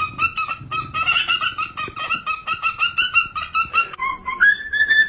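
An animal giving a fast run of short, high, clucking calls, about five or six a second, then a long held high call that steps up in pitch near the end.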